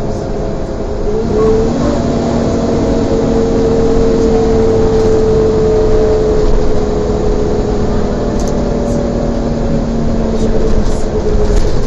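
Volvo double-decker bus with an Alexander ALX400 body driving, its high vacuum-cleaner-like whine, the 'Hoover' sound, rising about a second in and then holding steady over engine and road rumble.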